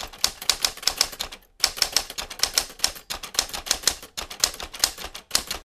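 Typewriter keystroke sound effect: a rapid run of sharp key clacks, about six or seven a second, with short pauses about one and a half seconds in and again near four seconds.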